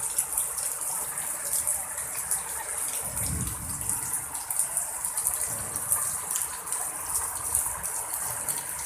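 Heavy rain pouring down steadily in a windstorm, a dense continuous hiss. A low rumble swells briefly about three seconds in.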